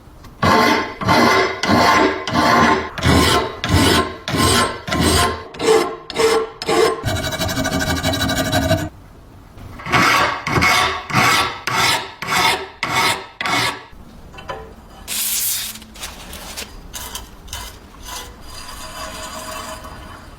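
Hand filing or rasping, rubbed back and forth in rhythmic strokes at about two a second, with a steady unbroken stretch of about two seconds partway through. A brief high hiss comes about fifteen seconds in, and the strokes continue more faintly afterward.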